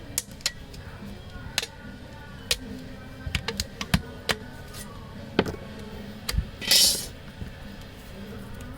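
A series of small sharp clicks and taps from handling a phone and small tools on a work surface, with a short hiss about seven seconds in, over quiet background music.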